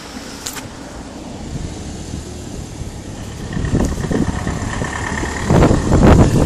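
Mobility scooter running along a pavement: a steady low rumble, with a thin steady motor whine joining about halfway through. Near the end, loud wind buffeting on the microphone takes over.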